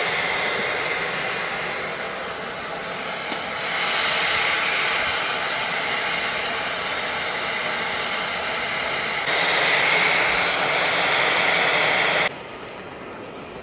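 Steady hissing rush of a portable propane camp-stove burner, with potato patties (aloo tikki) frying in oil in the pan above it. The sound grows louder about nine seconds in and drops sharply about a second before the end.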